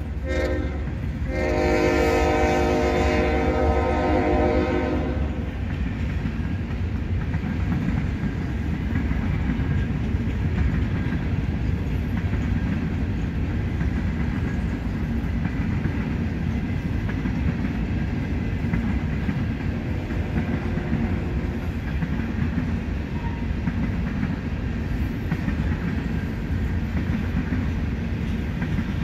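A freight locomotive's air horn sounds a chord, with a short break near the start, and cuts off about five seconds in. After that comes the steady low rumble of a freight train's covered hopper cars rolling past on the rails.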